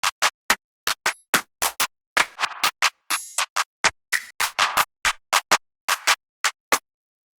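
A rapid run of short one-shot samples from a trap drum kit, percussion and scratch-like effect hits played one at a time, about three or four a second, each separate from the next; the run stops about half a second before the end.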